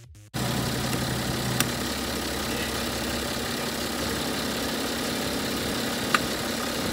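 BMW 530d's straight-six turbodiesel idling steadily, ticking over after a dose of Turbo Revive intake cleaner. Two sharp clicks, about a second and a half in and again about six seconds in.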